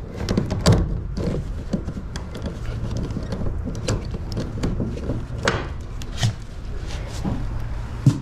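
Irregular knocks and clunks, with a low steady rumble underneath.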